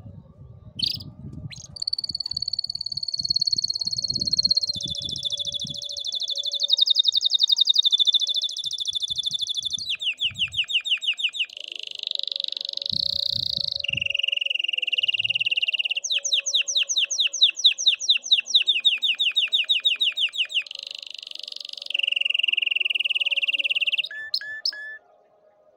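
Domestic canary singing a continuous song of rolling trills that shift pitch every second or two, with runs of rapid down-swept notes, ending in a few short chirps.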